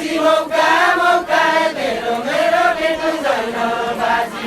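A group of voices singing a chanted folk song together in held, wavering notes, a Deuda song of far-western Nepal.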